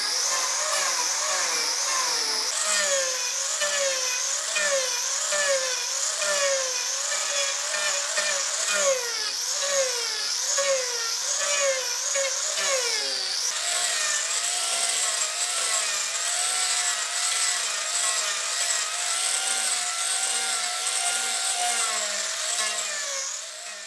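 Angle grinder with a carbide-tooth wood carving disc hollowing out a block of mango wood. The motor whine dips in pitch about once a second as the disc bites into the wood and recovers. About halfway through it jumps to a higher, steadier pitch.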